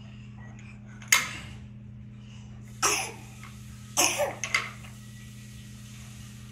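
Wooden toy pieces clacking and clattering as they are handled, a sharp knock about a second in and a quick cluster of clacks around the middle, over a steady low hum.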